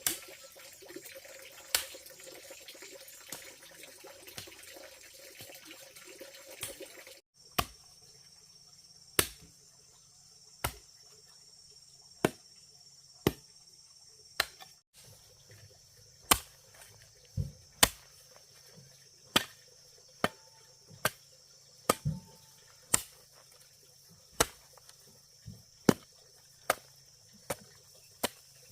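Sharp, evenly repeated strikes, about one a second, typical of a tool chopping or hacking, over steady insect chirring. For the first few seconds a rushing, water-like noise with a few knocks fills the background instead.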